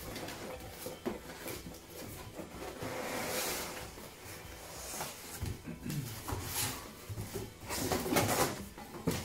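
Cardboard scraping and rustling as a shipping box's flaps and a flat cardboard insert are handled and pulled out, with a few knocks. It is loudest about eight seconds in.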